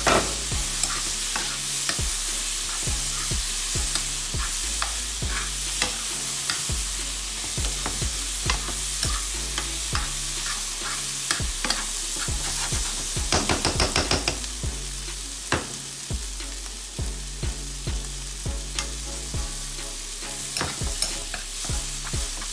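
Curry shrimp, peppers and onions sizzling in a frying pan as they are stirred, the utensil scraping and knocking against the pan over and over. A quick flurry of knocks comes a little past halfway.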